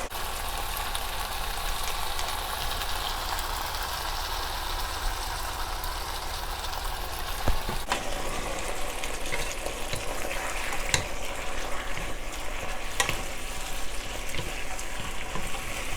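Shrimp and vegetables sizzling steadily in a wok as they are stirred with the sauce, with a few sharp knocks of the utensil against the wok.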